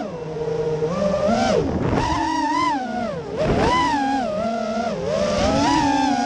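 FPV racing quadcopter's brushless motors and propellers whining, heard close from the onboard camera. The pitch keeps rising and falling with the throttle, with short drops and surges every second or two.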